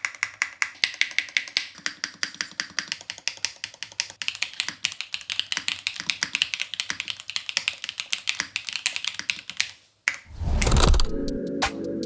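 Fast, steady typing on a Neo80 Cu 80% mechanical keyboard: many keystroke clicks a second for about ten seconds. The typing then stops, and near the end a loud whoosh leads into electronic music.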